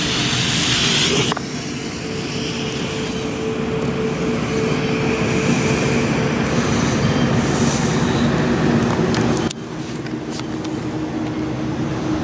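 Ambient synth music holds a steady droning chord over the hiss of a purple smoke grenade pouring out smoke. The hiss drops sharply about a second in and again near the end.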